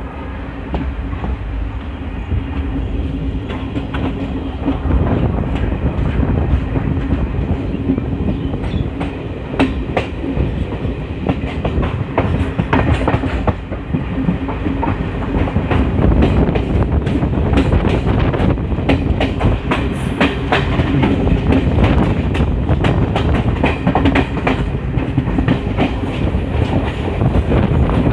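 Local passenger train running along the track, heard from its open coach doorway: a loud, steady rumble with the wheels clicking over rail joints. The clicks come more often from about nine seconds in.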